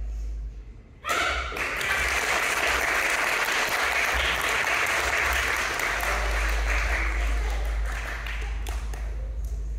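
A room of seated students and parents clapping, the applause breaking out suddenly about a second in and running on steadily.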